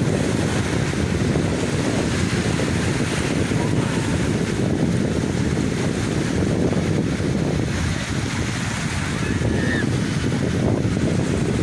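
Sea waves washing with wind buffeting the microphone: a steady, full rushing noise without pauses.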